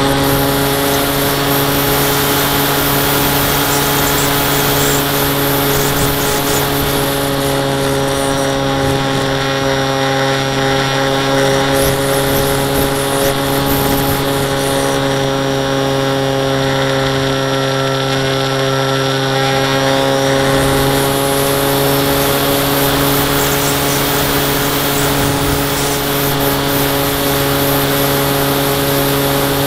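Electric motor and pusher propeller of a Zeta Phantom FX-61 flying wing running steadily in flight, picked up by the camera on board, with wind rush over the airframe. The whine dips slightly in pitch about two-thirds of the way through and then climbs back.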